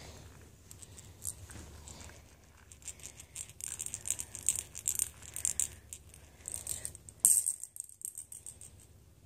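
A cat's rattle toy jingling and clicking as the cat bats and mouths it on the rug: a busy run of quick, high jingles in the middle, with one sharp click a little after seven seconds.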